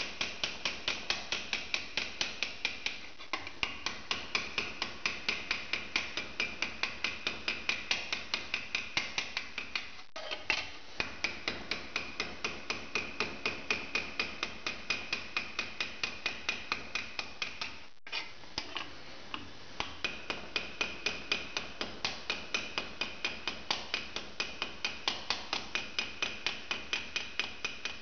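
Small hammer tapping quickly and evenly, about four light blows a second, peening copper rivets into a steel plate on a small anvil, each blow with a metallic ring. The tapping breaks off briefly about ten seconds in and again about eighteen seconds in.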